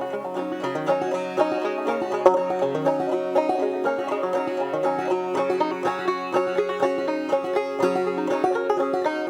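Banjo playing a bluegrass tune: a fast, steady stream of plucked notes.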